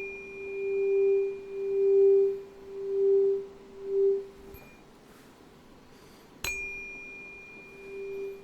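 A tuning fork ringing with a steady pure tone and a faint high overtone, its loudness swelling and fading about once a second before it dies away. About six and a half seconds in it is struck again with a sharp tap and rings on.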